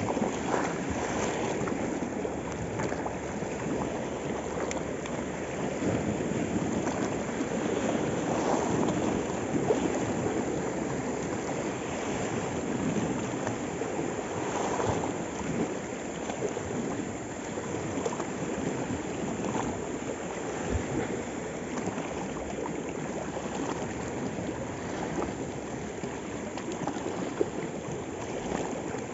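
Small sea waves lapping and washing at the water's edge, a steady splashing wash of water.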